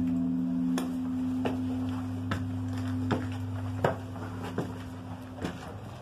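The deep lingering hum of a great church bell, the 9,000-kilogram Campana Mayor, slowly dying away after a strike. Over it come footsteps on stone spiral stairs, roughly one every three-quarters of a second.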